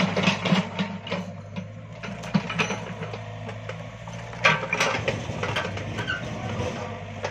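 An excavator working, its diesel engine running with a steady low hum under repeated metallic clanks and clicks, the loudest near the start and about four and a half seconds in.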